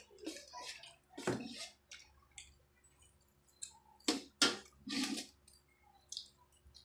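Eating sounds of spaghetti: slurping and chewing of noodles, with clinks of forks on plates. A handful of short, sharp sounds, the loudest coming about four to five seconds in.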